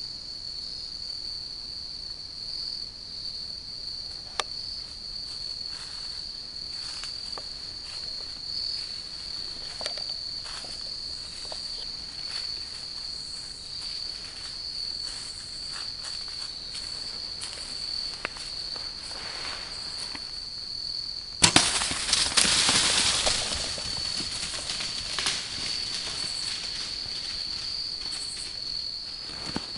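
Crickets chirring in a steady high chorus, with scattered faint ticks. About twenty seconds in, a sharp knock is followed by a few seconds of loud rustling, after which the cricket chorus carries on.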